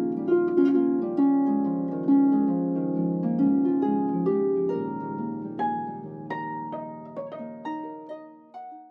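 Background music: plucked harp-like notes in a gentle melody, thinning out and fading away near the end.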